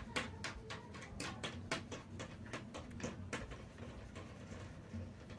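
Colored pencil scratching on paper in quick back-and-forth shading strokes, about four a second, growing fainter after about three seconds.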